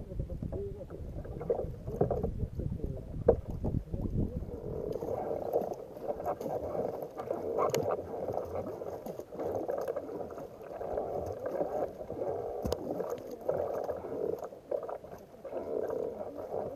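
Water sloshing and splashing around a kayak as it is paddled, swelling with each stroke about every one and a half to two seconds. A low rumble runs underneath for the first few seconds.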